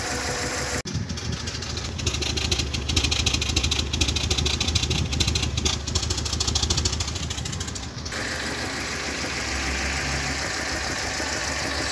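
A car engine idling unevenly with a misfire, running on fewer than all its cylinders. It is louder and choppier from about one second in to about eight seconds in. The mechanic suspects the valves or the manifold.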